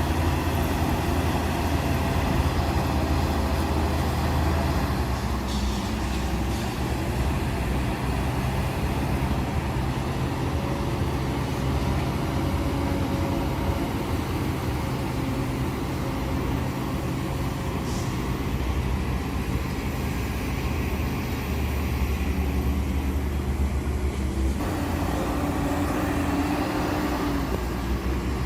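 Heavy diesel engine of earthmoving machinery running steadily with a low drone, the engine note shifting about five seconds in and again near the end.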